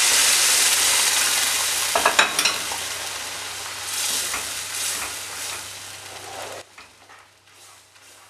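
Cooked dal poured into a hot nonstick kadai of fried tomato-onion masala sizzles loudly, the sizzle slowly fading as a spatula stirs it in. A few sharp clicks of the spatula against the pan come about two seconds in, and the sound drops away abruptly near the end.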